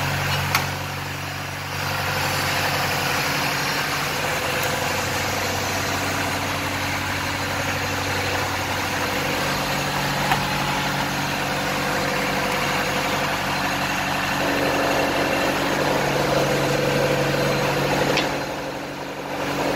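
Sliding table panel saw running steadily, its motor and spinning blade giving a constant hum. The sound changes about three-quarters of the way in and drops briefly near the end.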